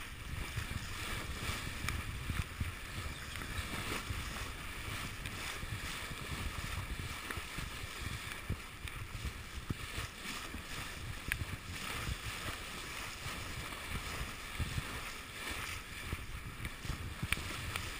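Water rushing and splashing along a sailing yacht's bow as it moves through open sea, with wind rumbling on the microphone and a few sharper splashes here and there.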